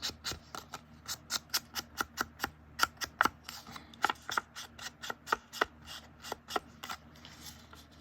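Quick run of short, sharp clicks and taps from hands-on paper crafting at a table, about three a second, thinning out and stopping about seven seconds in.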